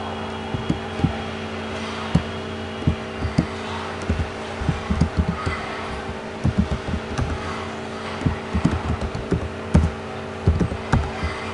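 Computer keyboard keys being typed in irregular runs of short clicks, over a steady background hum.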